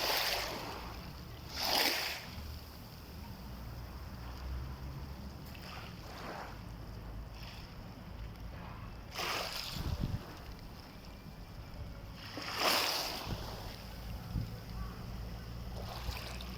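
Small sea waves washing onto the shore, a brief hissing swell every few seconds, over a steady low rumble.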